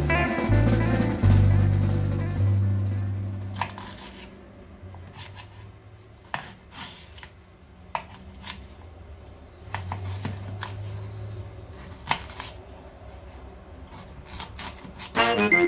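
Kitchen knife slicing a bell pepper, its blade tapping the wooden cutting board in irregular sharp knocks. Background music is loud at first and fades out after a couple of seconds.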